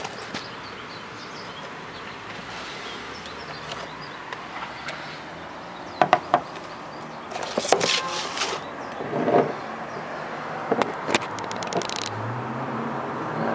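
Handling noises from glass perfume bottles and packaging: a few sharp clicks and knocks, a short noisy burst, and a quick run of clicks near the end, over a steady background hiss.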